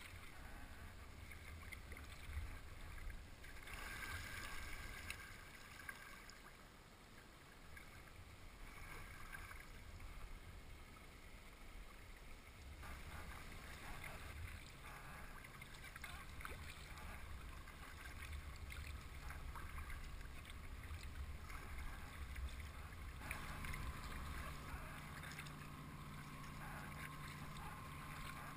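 Kayak paddling: water splashing and dripping off the paddle blades, with low wind rumble on the microphone. About two-thirds of the way through, a steady low machinery hum from the ships alongside joins in.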